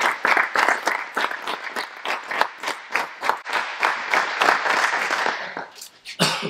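Audience applauding, a room full of people clapping; the applause thins out and dies away about five seconds in, with one short louder sound just before the end.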